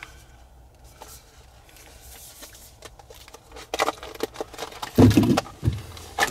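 A bunch of keys with a Ram key fob jingling and clicking as it is handled, then a dull thump about five seconds in, the loudest sound, followed by a few light clicks.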